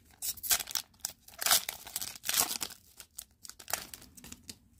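Foil hockey-card pack wrappers crinkling and tearing as they are handled, in irregular rustling bursts. The bursts are loudest in the middle and fade near the end.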